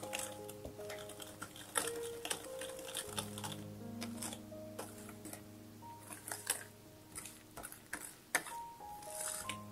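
Wire whisk clicking and scraping against a ceramic bowl in quick, irregular taps as dry cocoa and flour are worked into a wet batter, with the sharpest clicks about two seconds in and near the end. Soft background music plays throughout.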